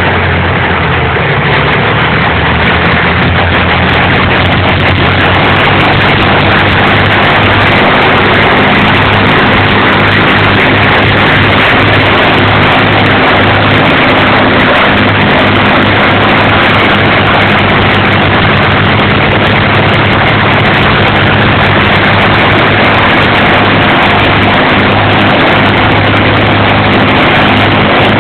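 Avro Lancaster bomber's four Rolls-Royce Merlin V12 engines running close by, a loud, steady drone with a deep engine hum and heavy propeller noise.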